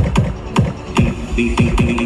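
Electronic dance music with deep, pitch-dropping kick drum beats about twice a second, played loud through a large sound system under test.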